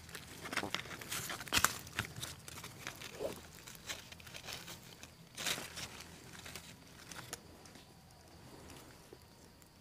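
Dry forest leaf litter rustling and crackling as wild mushrooms are picked from it, with a few sharper snaps; it thins out over the last couple of seconds.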